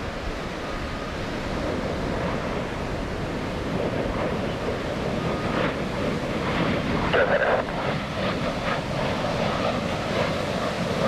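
Jet noise from USAF Thunderbirds F-16 Fighting Falcons in formation: a broad, rushing roar that grows steadily louder as they come closer, with wind buffeting the microphone.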